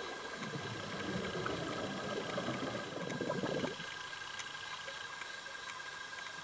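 Underwater recording: a scuba diver's regulator exhaust releases a crackling rush of bubbles for about three seconds, cutting off suddenly, over a steady hiss and a faint constant whine.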